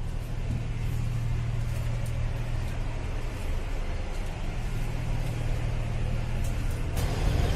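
Steady low rumble of a moving passenger train coach, with running noise from wheels on track, heard from inside the coach's vestibule. It grows a little louder about seven seconds in.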